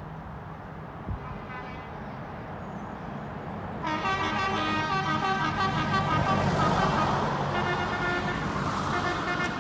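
Tractor engines running steadily as the convoy comes along the road, then from about four seconds in a loud horn sounding a run of different tones.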